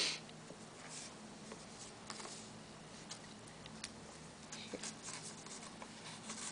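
Faint rustling of paper and light ticks as hands turn and handle the pages of a stamp album, with a short swish right at the start.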